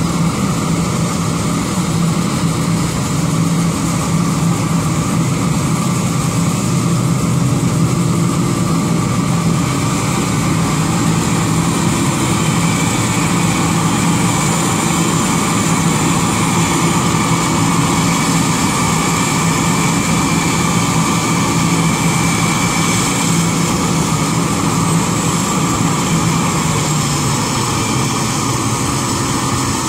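Combine harvester running steadily at work: a continuous engine drone with a high whine above it.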